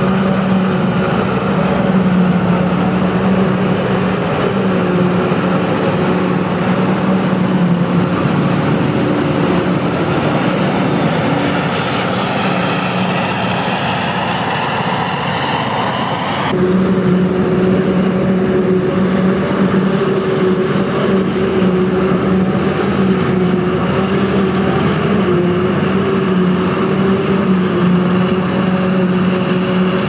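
Claas Jaguar 870 self-propelled forage harvester running under load as it chops maize and blows it into a trailer, with a John Deere tractor running alongside: a steady, loud mechanical drone. A rising whine comes in for a few seconds before the sound changes abruptly about halfway through.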